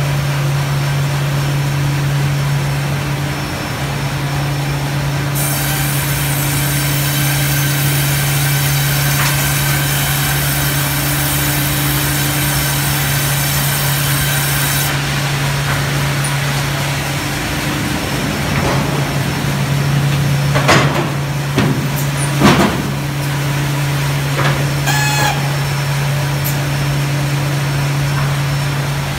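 LBL Brenta log bandsaw line with its hydraulic log carriage running: a loud, steady low machine hum. A high whine joins for about ten seconds in the first half, and several sharp metal knocks and clanks come in the second half.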